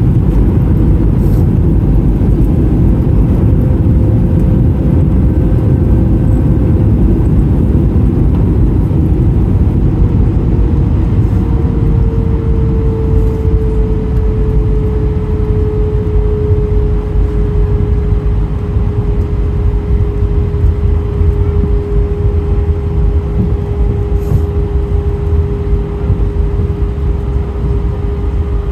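Cabin noise of an Airbus A319 taxiing after landing: a loud low rumble from the engines and rolling wheels, with a steady engine whine that drops a little in pitch about twelve seconds in and then holds.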